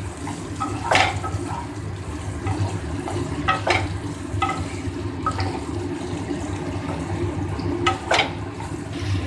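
Spatula stirring cauliflower, potato, tomato and peas frying in oil in a pan, with several short scrapes and knocks of the spatula against the pan over a steady sizzle.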